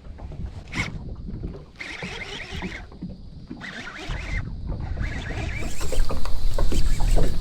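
Wind on the microphone and water noise aboard a small fishing boat, a steady low rumble with two short hissing bursts, growing louder about six seconds in.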